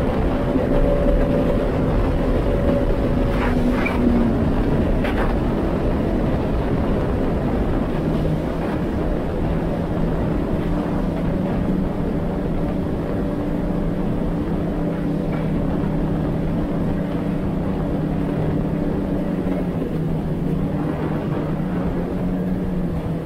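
2019 Yamaha GP1800R WaveRunner's four-stroke engine and jet pump running steadily under way, over the rush of water against the hull. The engine note drops a little a few seconds in and then holds steady.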